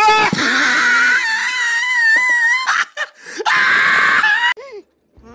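A high-pitched, wavering scream in two long cries, the second one starting about three and a half seconds in, followed by a short falling squeal.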